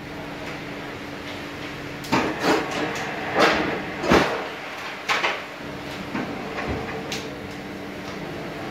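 Metal probe clips being handled against the copper commutator segments: a cluster of clicks and scrapes through the middle, over a steady background hum.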